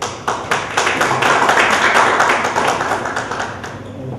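A small audience applauding: scattered claps at once that build into steady applause, then die away near the end.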